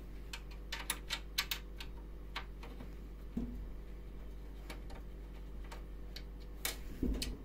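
Screwdriver turning a screw out of the edge of a built-in oven door: scattered light metallic clicks and ticks, most of them in the first couple of seconds and a few more near the end.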